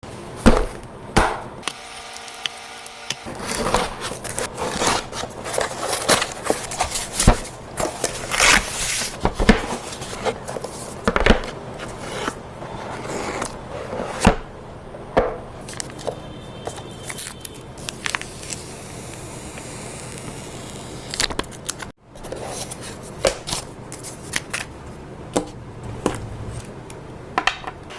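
A smartphone's cardboard retail box and its contents being handled and unpacked: an irregular run of sharp clicks, taps, rustles and scrapes.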